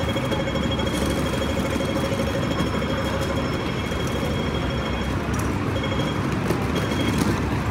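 City street traffic noise: a steady rumble of vehicles, with a thin high steady tone above it that breaks off and returns a few times near the end.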